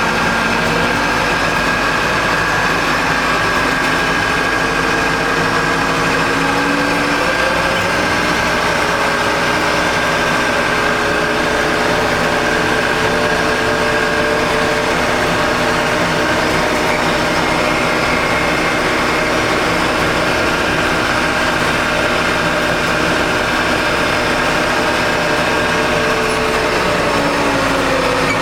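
Backhoe's diesel engine working under load while pushing snow with a pusher box. The engine revs up over the first few seconds, holds steady at high revs, then drops back near the end.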